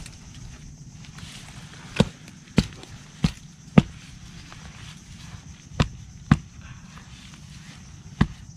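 Digging by hand into sandy soil at a land crab burrow: seven sharp knocks, several in pairs about half a second apart, over a low steady rumble.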